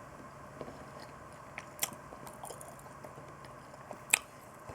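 Quiet chewing of food, with two sharp clicks, about two seconds in and near the end.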